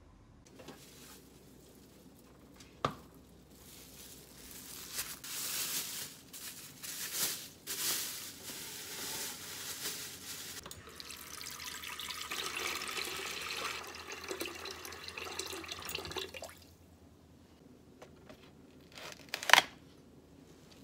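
Plastic bag crinkling as its contents go into a stainless steel pot, then water running steadily into the pot for about six seconds. A single sharp knock near the end, a knife meeting a wooden cutting board.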